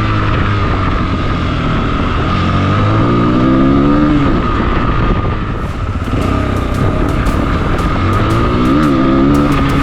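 Rieju Aventura 125 motorcycle engine under way off-road: it revs up and drops back about four seconds in and again near nine seconds. The engine runs over a constant rush of wind and road noise, with sharp clicks in the second half.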